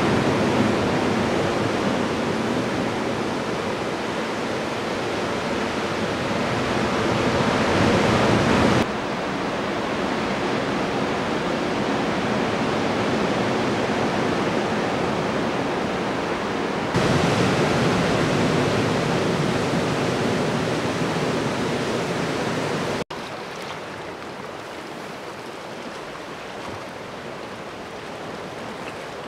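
Steady wash of ocean surf against a rocky coast. The level jumps abruptly about 9 and 17 seconds in and drops to a quieter wash about 23 seconds in.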